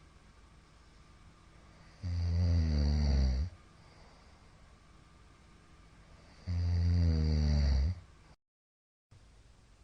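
A middle-aged man snoring loudly in his sleep: two snores about four and a half seconds apart, each lasting about a second and a half. Near the end the sound cuts out completely for under a second.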